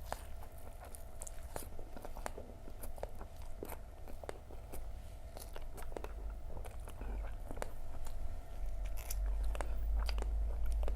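Close-miked chewing of crispy Indonesian fried fritters (gorengan), with irregular crunching crackles throughout. A low rumble grows louder over the last few seconds.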